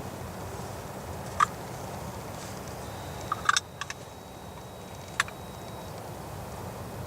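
A few short, sharp turkey calls over a steady background hiss: one note about a second and a half in, a quick cluster of notes around three and a half seconds, and a last one near five seconds.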